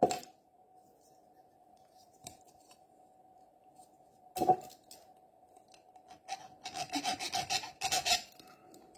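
Victorinox SwissChamp's small metal file rasping on the steel stud of a Kershaw Shuffle II folding knife, rounding it off. There is one short scrape about four and a half seconds in, then a run of quick strokes near the end.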